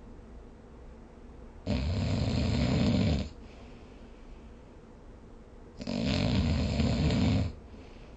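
A sleeping person snoring: two loud, rough snores about four seconds apart, each lasting about a second and a half.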